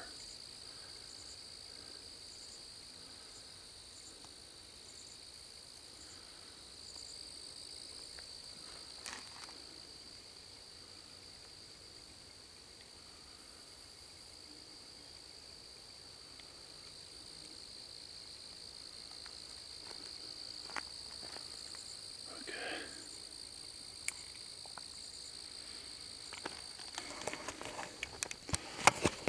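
Faint night chorus of insects: two steady high-pitched drones with faint repeated chirps, and a few soft knocks and a patch of rustling near the end.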